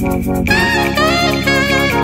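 Background music with a steady beat; a lead melody comes in about half a second in.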